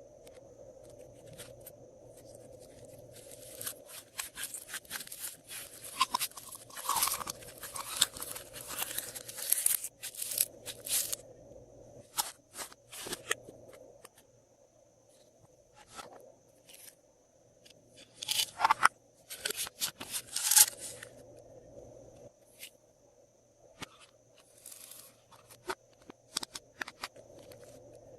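Glossy slime being squished and mixed by hand, with bursts of crackling, popping clicks. The clicks come densely in a long run a few seconds in and again in a shorter run past the middle, with scattered single pops between.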